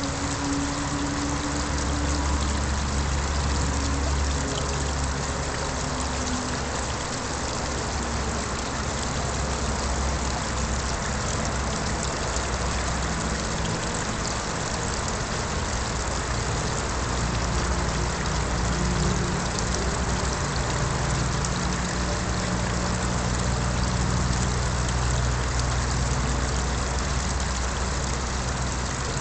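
Small garden-pond waterfall splashing steadily into the pond, with a low hum underneath.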